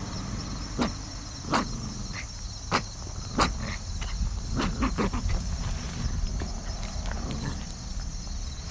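Steady high-pitched insect chirring over a low rumble, with about six sharp clicks or taps at irregular intervals in the first half.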